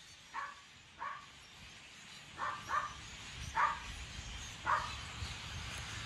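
An animal calling six times in short single calls, two of them close together about two and a half seconds in.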